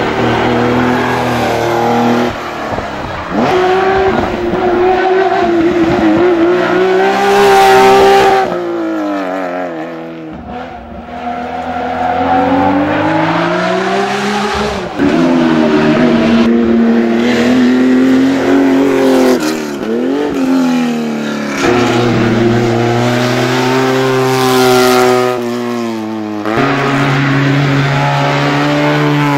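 Historic racing cars passing one after another on a hill-climb, among them a Porsche 911 and a Fiat 500 racer, their engines revving hard and rising and falling in pitch through gear changes. There is a brief lull about ten seconds in.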